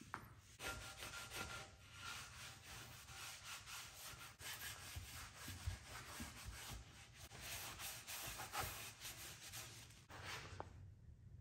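A cloth shop rag damp with acetone rubbed back and forth over a bare aluminium LS oil pan, a faint scratchy wiping in many short strokes as the pan is cleaned before painting. It starts about half a second in and stops about a second before the end.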